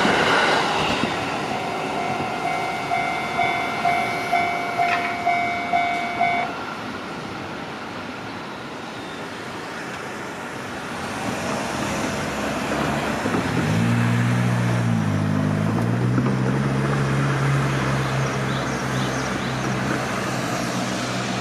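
A Japanese railway crossing's electronic warning bell dings about twice a second as the noise of a passing train dies away, then stops about six seconds in. From about thirteen seconds in, a vehicle engine's low hum sets in, dips once in pitch, then holds steady as it moves off.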